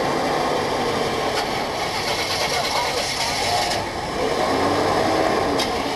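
Crowd chatter over running car engines, a steady busy noise with no clear horn blasts.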